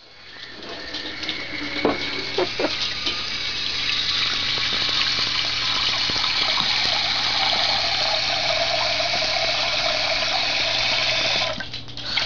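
Kitchen faucet running into a metal pot in a stainless steel sink, filling it with cold water. A few light knocks about two seconds in, and the flow sound dips briefly near the end.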